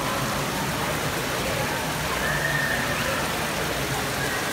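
Steady rush of water falling down a rock wall and splashing into a pool.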